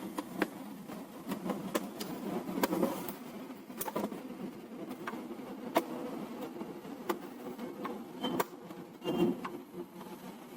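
Sharp plastic clicks and taps at irregular intervals, about a dozen, as a laser printer's plastic casing and latches are pried and lifted with a flat-blade screwdriver, over a steady low background buzz.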